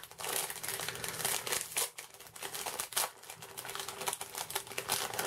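Clear plastic packaging bag crinkling and crackling as hands work steel wire fishing leaders out of it, a steady run of small crackles.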